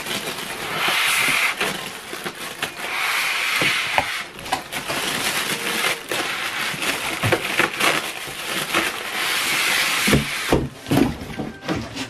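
Plastic wrapping rustling and crinkling, with polystyrene packing blocks and cardboard scraping and creaking as a packed printer is pulled out of its box. It comes in several long rustling stretches, with sharper knocks and clicks near the end.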